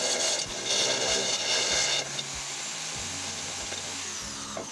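Handheld electric drill boring through a thin disc: loud drilling for about two seconds, then the drill runs on more quietly, with a falling whine near the end. Background music with a steady beat underneath.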